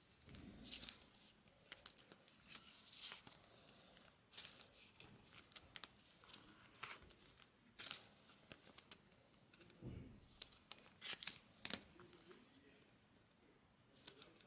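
Faint rustling, crinkling and light clicks of Bowman Chrome trading cards being handled and slid against one another at close range, with a soft handling bump near the start and another about ten seconds in.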